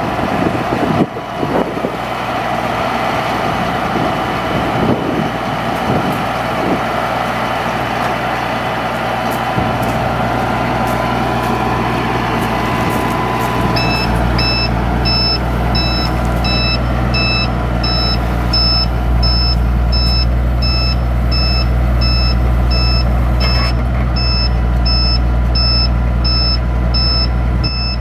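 A 2001 Ford F750 digger derrick truck's engine running steadily, louder from about ten seconds in as the hydraulics are worked. About halfway through, a warning alarm starts beeping just under twice a second while the hydraulic outrigger legs are lowered.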